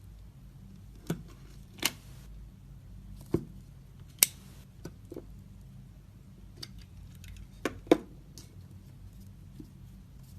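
Dry soap cracking and crumbling: about six crisp snaps spread over the stretch, two of them trailing off into a short crumble.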